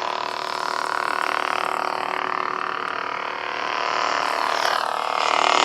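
Lightsaber soundboard (CFX) playing an Obi-Wan sound font's steady electric hum through the hilt's speaker, with swing swooshes rising and falling from about four and a half seconds in as the hilt is moved.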